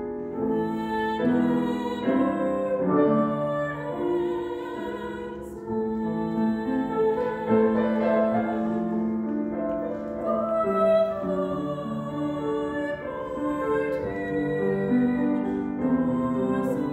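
A young woman singing a classical art song in a trained voice with vibrato, accompanied by a Steinway grand piano.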